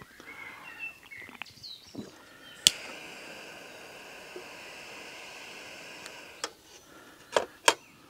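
Small metal candle lantern being handled: a sharp click, a steady hiss for about three and a half seconds, then two sharp metal clicks near the end as its glass door is worked. Birds twitter faintly in the first seconds.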